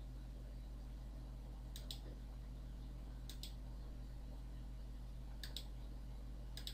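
Computer mouse button clicking four times, a second or two apart, each click a quick press-and-release pair, over a faint steady low hum.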